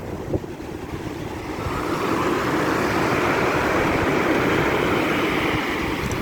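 Heavy storm surf: a large wave breaking and rushing in as a loud roar that swells over a couple of seconds and eases off near the end.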